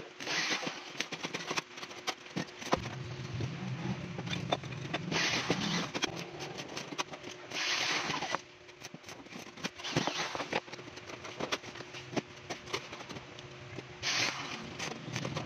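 Stick (arc) welding on galvanized square steel tube: the arc crackling and sizzling in several runs with short pauses between, and a low hum for a few seconds in the middle.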